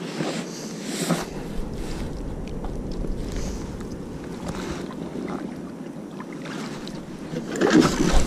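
Water lapping against the hull of a fishing kayak at sea, with wind on the microphone and a few small knocks of gear being handled; a louder rush of noise comes near the end.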